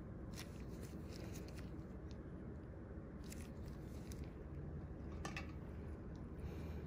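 Low steady hum of room noise with faint scattered clicks and crackles, about a dozen short ones spread through the stretch.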